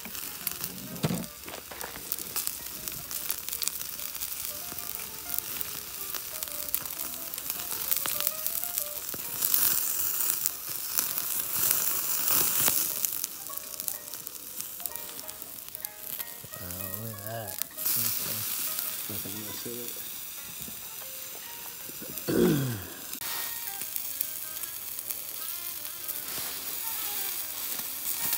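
Steak sizzling steadily on the grill grate of a Firebox stove over hot coals. About two-thirds of the way through, a brief low falling tone stands out as the loudest sound.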